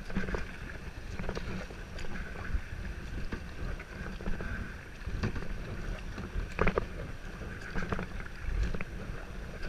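Kayak paddling on a river: short water splashes at irregular intervals over a steady rumble of wind on the microphone.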